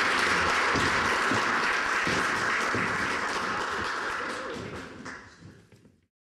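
Audience applauding with many hands clapping, fading out near the end.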